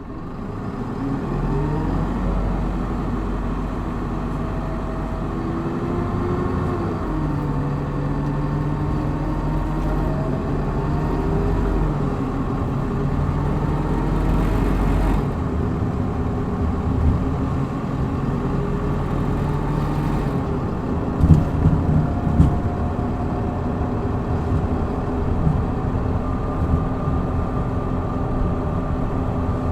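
Hino Blue Ribbon city bus's diesel engine accelerating hard from a stop in its power-mode setting, heard inside the cabin. The engine note climbs and drops back several times as it goes up through the gears, then settles into steady running, with a few sharp knocks about three quarters of the way through.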